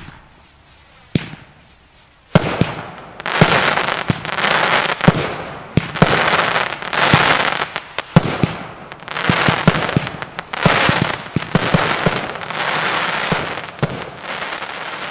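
A 13-shot firework battery (Spinning Blossom cake) firing. After a single pop about a second in, it shoots roughly once a second, each shot a sharp thump followed by a long burst of hiss.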